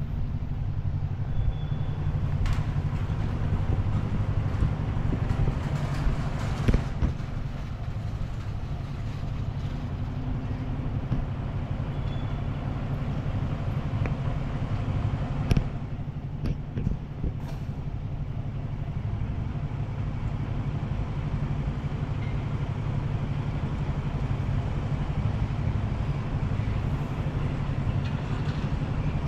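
Steady traffic on a wide city arterial road: cars and trucks running past in a continuous low rumble, with a few short clicks or knocks.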